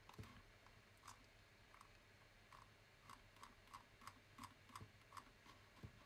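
About a dozen faint, short clicks at an uneven pace, from a computer mouse's scroll wheel as code is scrolled down the screen.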